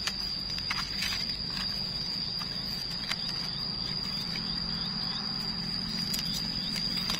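A steady, high insect drone holds throughout. Soft clicks and rustles come from gloved hands and a knife trimming the stems of freshly picked mushrooms.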